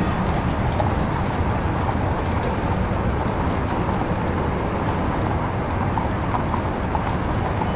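Horse hooves clip-clopping on a street over a steady low rumble of street noise.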